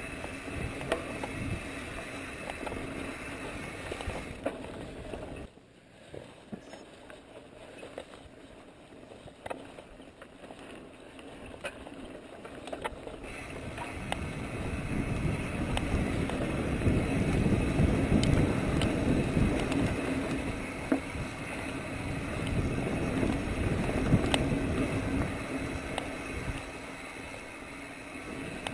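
Mountain bike rolling down a dirt trail: a steady rumble of tyres on dirt with scattered clicks and rattles from the bike, plus wind on the microphone. It drops suddenly about five seconds in, then builds again and is loudest in the second half as the bike picks up speed.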